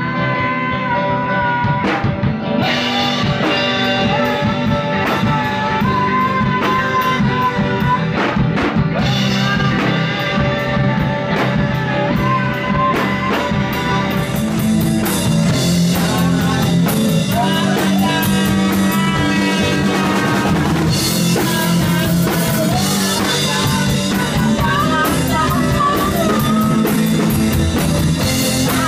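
Music: a rock song with singing, guitar and drums; the drums and cymbals come in about two and a half seconds in.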